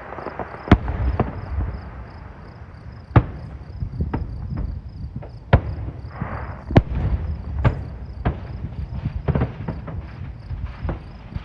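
Fireworks going off: a string of sharp bangs, roughly one a second, over a low rumble.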